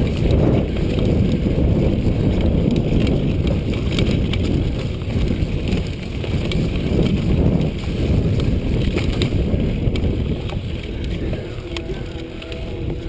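Wind buffeting the microphone of a chest-mounted camera on a mountain bike moving fast along a dirt trail, mixed with tyre noise and quick rattles and clicks from the bike over bumps. The rush eases a little near the end.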